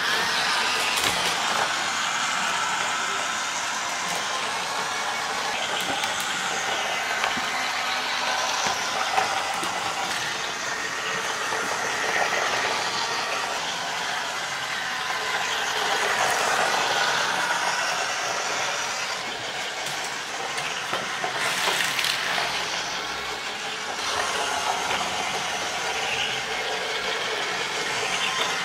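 Steady vehicle running noise, an even whirring hiss that barely changes in level.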